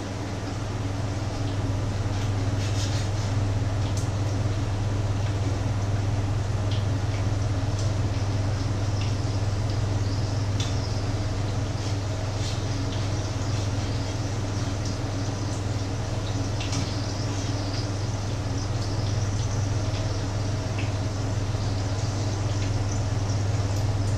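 Patties frying in oil in a pan, an even sizzle dotted with small crackles, over a steady low hum.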